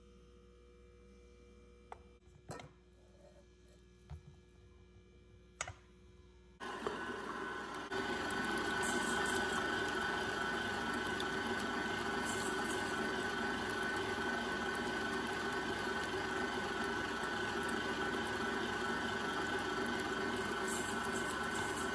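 Electric stand mixer with a whisk attachment switching on about a third of the way in, getting louder a second or so later and then running steadily at speed as it beats eggs. Before it starts there are a few light clicks and knocks.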